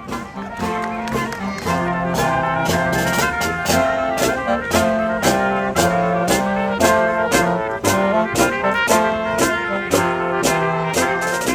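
Brass band playing a Christmas carol: trumpets and trombones carrying the tune over a steady percussion beat.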